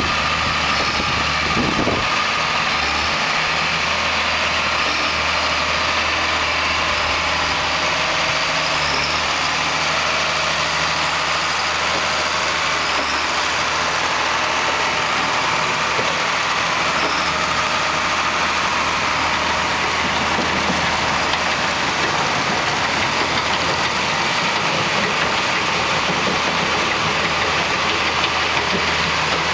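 John Deere tractor's diesel engine running at a steady speed while it drives a New Holland BB940 large square baler that picks up and compacts curbside leaves, the baler's machinery running with it in one continuous, loud drone.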